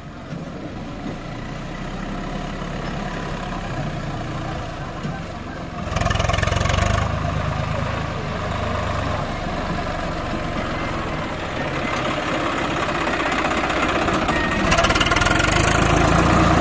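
Swaraj 744 FE tractor's three-cylinder diesel engine running steadily while pulling a fully loaded trolley, growing louder as it comes closer. About six seconds in, the engine noise swells for around a second, and it is louder again near the end, heard close up.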